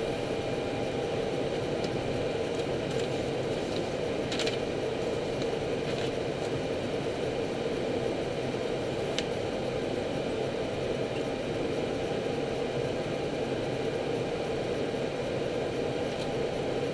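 Steady cockpit noise of an Airbus A319 taxiing: an even hum of engines at idle and ventilation, with a few faint clicks.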